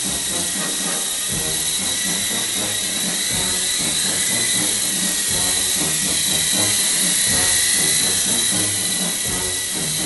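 Small radio-controlled helicopter hovering and flying, its motor and rotors giving a steady high whine with a hiss, rising a little about seven seconds in.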